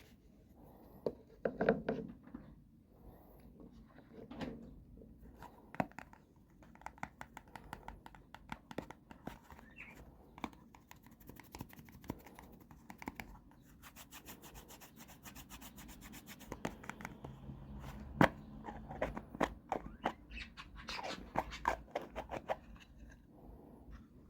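Fingernails tapping and scratching on makeup containers: irregular close-up taps and rubs, a fast even run of tapping about halfway through, and one sharper tap in the second half.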